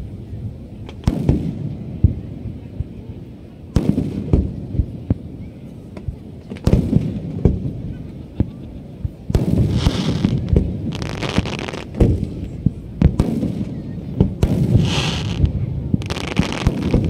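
Aerial fireworks bursting overhead: a string of sharp bangs and booms at irregular intervals, with longer crackling spells about ten seconds in and again near fifteen seconds.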